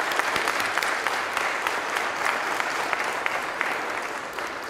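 Audience applauding, many hands clapping together, the applause tapering off near the end.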